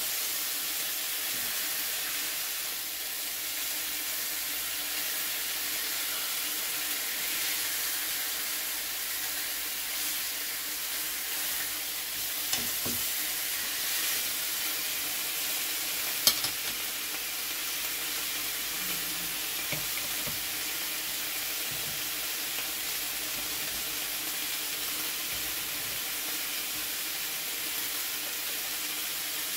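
Meat frying in a pan: a steady sizzle, with a few sharp clicks, the loudest about halfway through.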